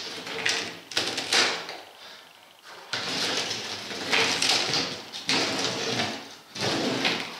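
Rubber being torn and scraped off an Omsk OI-25 truck tire as its tread is stripped down to the wire bundles: a few short scrapes, then longer rasping bursts from about three seconds in.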